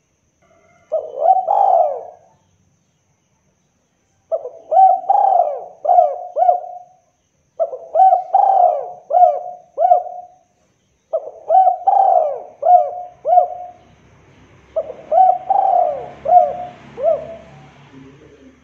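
Spotted dove (derkuku) cooing: five phrases spaced about three seconds apart. The first is short, and each of the others is a run of about four quick, hollow notes.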